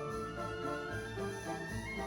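Background orchestral music with strings and brass.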